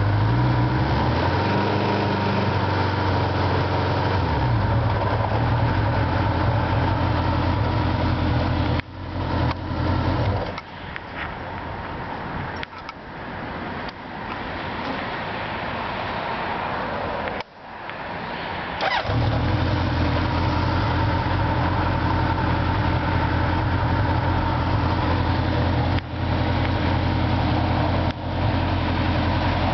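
Honda CB750's air-cooled inline-four idling. It stops about nine seconds in, is started again about nineteen seconds in, and idles on.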